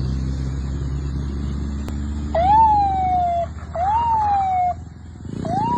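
Police-style siren sounding three short wails, each jumping up quickly and then sliding slowly down, the first about two seconds in, over the steady low hum of a vehicle engine.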